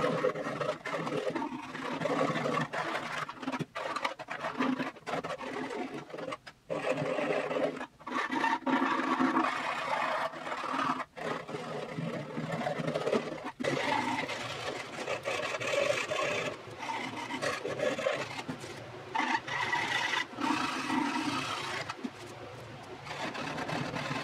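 A small hand file rasping back and forth along the edges of the f-hole cut into an octave mandolin's wooden top, cleaning residue out of the aperture. It runs in uneven spells of strokes broken by brief pauses.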